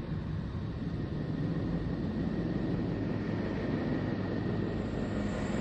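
The 'sound of Neptune': electromagnetic signals picked up by spacecraft instruments and converted to audio, heard as a steady, dense low rumble like distant wind or engine noise, with a few faint steady hum tones above it.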